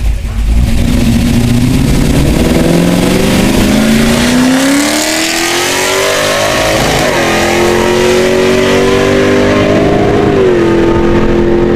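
1971 Chevelle's 505-cubic-inch big-block V8 making a full-throttle drag-strip launch. Its pitch climbs steadily, drops at a gear change about seven seconds in, climbs again, and drops once more near the end.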